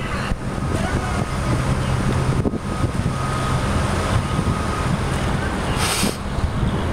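Wind buffeting the microphone: a steady low rumble, with a faint thin tone through the middle and a brief hiss about six seconds in.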